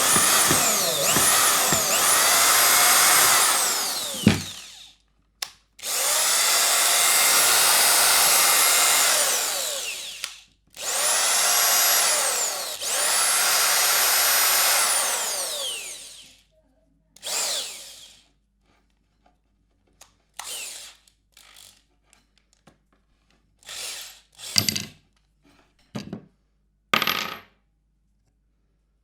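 Electric screwdriver motor running in three long runs of about four to five seconds each, whining up in pitch as it spins up and dropping as it stops. These are followed by several short bursts of a second or less.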